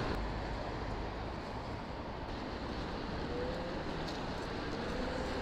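Steady rush of road traffic heard from an electric bicycle riding along a busy city road, with a faint rising whine a little past the middle.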